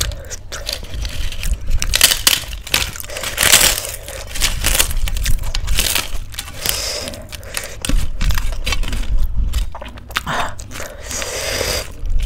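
Crisp fried papad being crushed and crumbled by hand onto a steel plate of rice, giving repeated sharp crackling and crunching.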